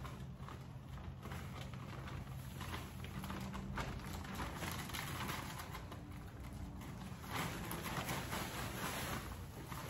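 Shredded dry leaves rustling and crackling as they are shaken out of a leaf vacuum's collection bag into a paper leaf bag, louder in the second half, over a faint steady low hum.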